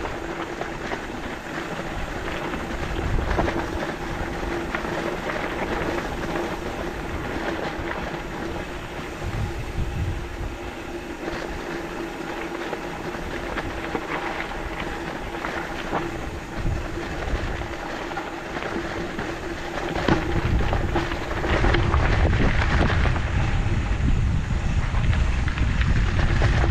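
Mountain bike being ridden along a dirt trail: tyre noise and rattle, with a steady hum underneath, and wind buffeting the microphone that grows heavier about three-quarters of the way through.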